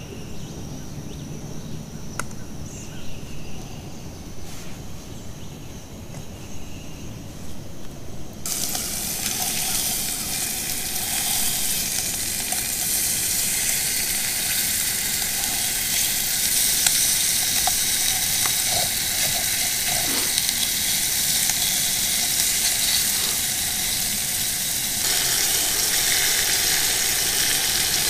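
Bacon frying in a pan: quiet at first, then a steady sizzle sets in about eight seconds in and grows a little louder near the end.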